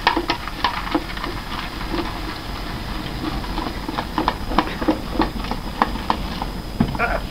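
Liquid nitrogen boiling off as it is poured into a steel pot of ice cream mix, a steady hissing bubbling. Throughout, the stirring spoon makes irregular clicks and knocks against the pot.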